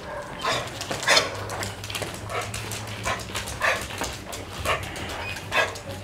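A leash-reactive dog barking and yipping in short, separate outbursts, about seven in all, as it strains on its lead at the sight of another dog.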